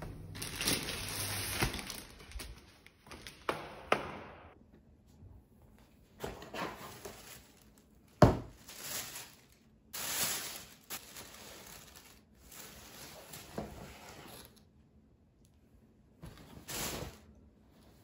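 Plastic wrapping and tissue paper crinkling in irregular bursts as a parcel is unpacked from a cardboard box, with a few light knocks and one sharp thump about eight seconds in.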